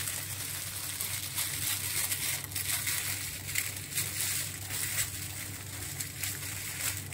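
Plastic oven bag crinkling and crackling in the hands as its open end is gathered and twisted shut around the potatoes.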